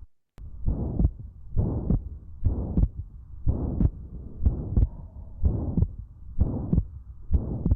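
Recorded heart sounds: a loud, harsh systolic murmur filling each beat, about one beat a second, with a short dropout just after the start. It is the very intense murmur of a ventricular septal defect.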